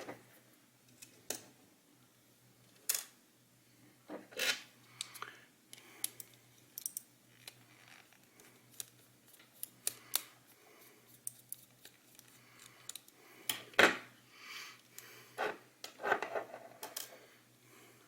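Scattered small plastic clicks and taps from a vertical computer mouse being taken apart by hand, its loose parts handled and knocked together, with a few sharper clicks near the middle and toward the end.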